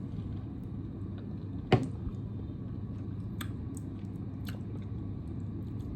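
Someone eating ice cream: a sharp knock a little under two seconds in, then a few light clicks, over a steady low room hum.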